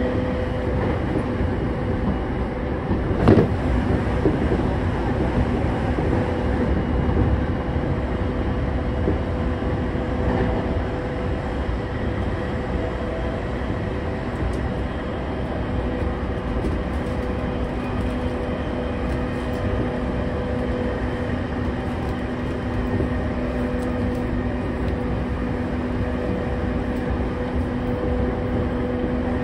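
Running noise of a JR East E231-0 series electric train, heard from the floor of a motor car: a steady rumble of wheels on rail with a constant two-note hum, and one sharp knock about three seconds in.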